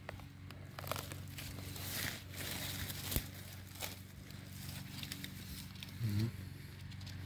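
Dry leaf litter and twigs rustling and crackling with scattered sharp snaps, as someone moves and searches through forest-floor leaves.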